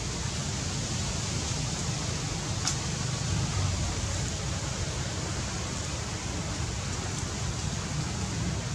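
Steady hiss of outdoor background noise with a low rumble underneath, and a faint click about a third of the way in and another near the end.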